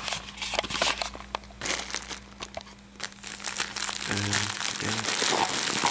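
Clear plastic packaging bag crinkling and rustling as hands handle it, in a run of uneven crackles. Two short low hums about four seconds in.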